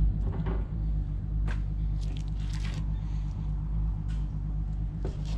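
Fillet knife trimming a raw black drum fillet: a few short, soft, wet cutting sounds, over a steady low hum.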